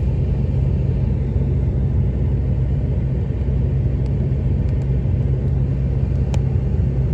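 Car's engine running steadily, a low rumble heard from inside the cabin, with a few faint ticks.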